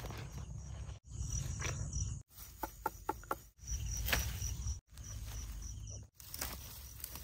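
Insects chirping in a steady, regularly pulsing high trill over a low rumble, the sound dropping out for an instant about every second as short clips are cut together. A few light taps about two and a half to three and a half seconds in.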